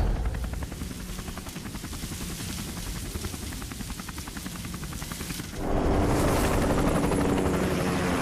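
A motor running with a fast, even pulse, getting louder about five and a half seconds in.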